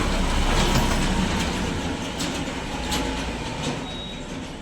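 Steady low rumble of a passing heavy vehicle, slowly fading, with a few light clicks over it.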